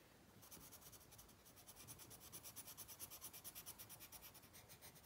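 Faint scratching of a coloured pencil shading back and forth on worksheet paper, in quick even strokes that start about half a second in.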